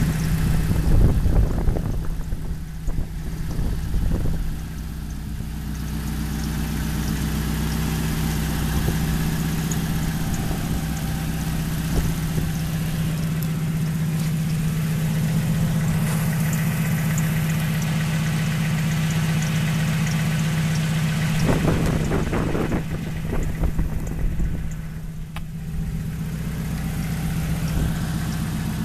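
1997 Neon's 2.0 L DOHC 16-valve four-cylinder engine idling steadily, heard at the engine bay and at the exhaust. Brief rumbling noise breaks in twice, about two seconds in and again past the two-thirds mark.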